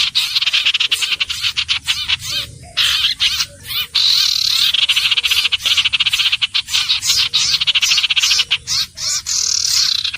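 Iora calling: a dense run of rapid, rasping, high-pitched trilled notes, with a short break about two and a half seconds in.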